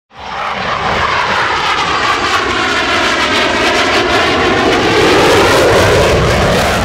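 A propeller airplane's engine running at high power as the plane flies past. It cuts in suddenly and is loudest a little past the middle.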